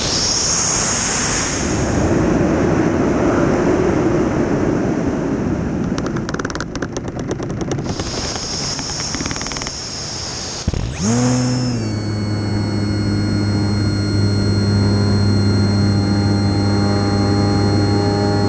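Phantom RC airplane's electric motor and propeller running in flight, heard from the onboard camera under heavy wind rush, with a high whine and a rapid run of clicks around six to seven seconds in. Just before eleven seconds in the sound drops out for a moment, then the propeller settles into a steady hum with a high whine.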